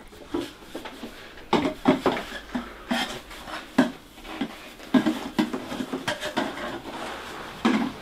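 Irregular clattering and knocking of hard objects being handled, a dozen or so sharp clacks with duller thuds among them.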